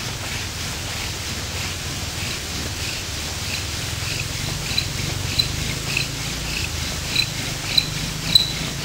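Bow drill spindle squeaking in its hearth board, one short squeak per bow stroke at a steady medium pace of nearly two a second, growing louder toward the end: the wood is heating up and grinding out dust. Spindle and hearth are Eastern white pine.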